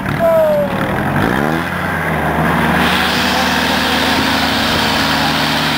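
WWII jeep's Go Devil four-cylinder flathead engine revving up about a second in, then running steadily, with a short rise in revs near the end.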